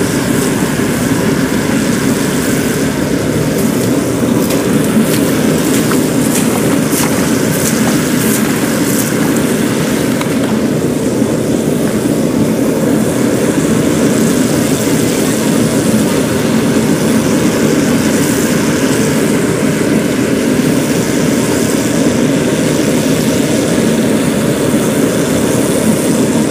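Zoomlion FH100 Speedster combine harvester running steadily with a constant engine drone as it cuts rice.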